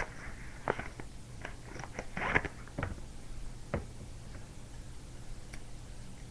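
Handling noise: a few scattered clicks and short rustles in the first four seconds over a low steady room hum, after which only the hum remains.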